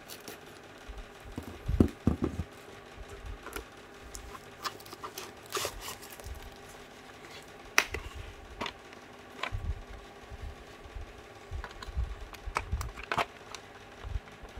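Paper wrapping slit with a knife and torn off a hard plastic carrying case: rustling and crackling paper, with scattered clicks and knocks from the case being handled, the loudest about two seconds in and again near eight seconds.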